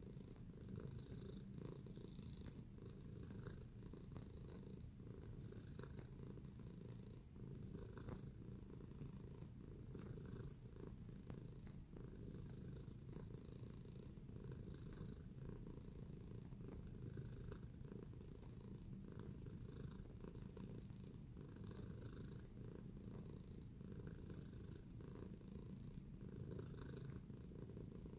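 Tabby cat purring softly and steadily. Faint scratchy rustles come every second or two as its front paws knead the fleece bed.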